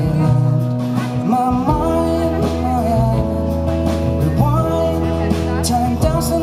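Live band playing a song: acoustic guitar strummed over electric bass and drums, with a voice carrying the melody.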